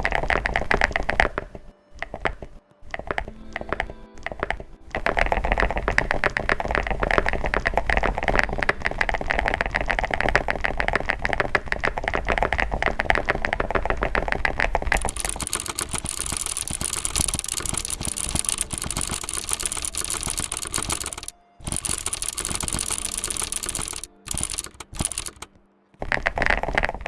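Fast typing on a computer keyboard: a dense run of key clicks broken by a few short pauses. About halfway through, the keystrokes turn sharper and higher-pitched.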